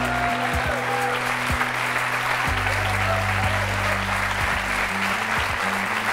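Studio audience applauding, dense and steady, over background music with held bass notes that change every few seconds.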